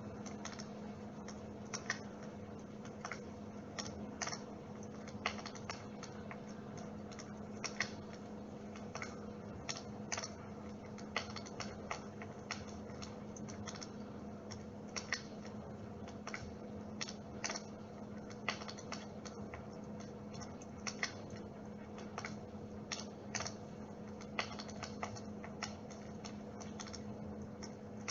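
Dimplex water-mist electric fireplace running: a steady low hum with irregular sharp crackling clicks, a few a second, like a small wood fire.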